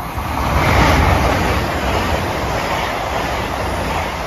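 Great Western Railway Class 802 train passing through the station at speed without stopping: a loud rush of wheels on rail and air with a low rumble underneath. It swells to its loudest about a second in, then holds steady as the carriages go by.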